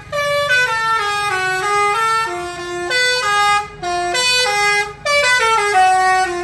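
A bus's multi-tone telolet horn playing its tune: quick stepped notes rising and falling in pitch, in several phrases with brief breaks between them.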